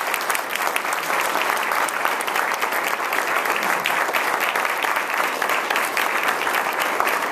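An audience applauding steadily after a speech: many people clapping at once.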